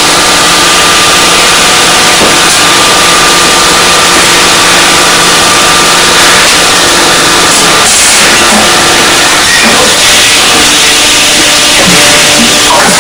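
Deep-drawing press cycling through a combined punching and drawing stroke: a loud, steady machine hum and hiss with fixed tones, and a couple of short gliding tones in the second half.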